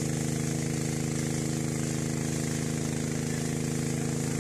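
An engine running steadily at an even speed, with a fast, regular pulse.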